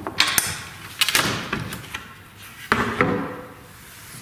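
Sharp knocks and clanks of a hand tool on a steel jack bracket and its bolts, in three quick bunches: just after the start, about a second in, and near three seconds in.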